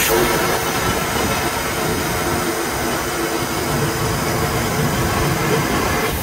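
Steady hiss of a water spray with a motor's hum beneath it, from a pressure sprayer washing out a solar water heater's glass tubes.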